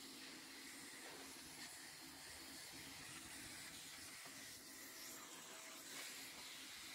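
Faint, steady hiss of a pressure-washer jet spraying onto concrete roof tiles.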